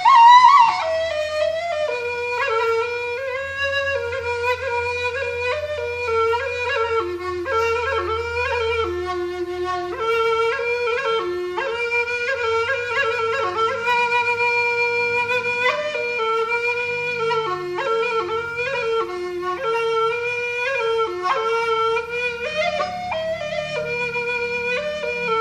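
Balinese suling, an end-blown bamboo ring flute, playing a solo melody of held and stepped notes, mostly in its middle register, opening with a loud higher note.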